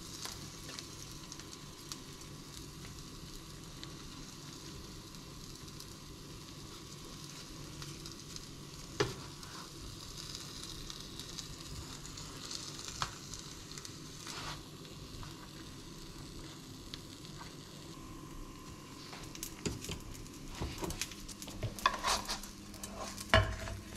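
Mushroom-and-cheese omelette frying gently in a nonstick frying pan with a steady, faint sizzle. A few single spatula clicks against the pan, then near the end a run of louder knocks and scrapes as the spatula works under the folded omelette and the pan is moved.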